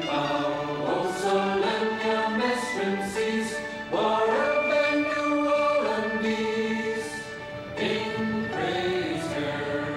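Music with a choir of voices singing long held notes.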